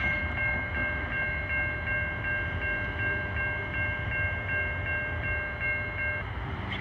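Railroad grade-crossing warning bell ringing at about three strokes a second, over a steady low rumble, then falling silent about six seconds in as the crossing signal shuts off.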